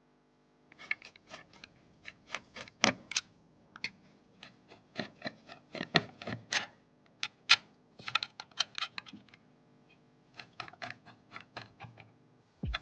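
Rapid, irregular sharp clicks and clacks of hard plastic and metal parts being handled, several a second with short pauses, over a faint steady hum.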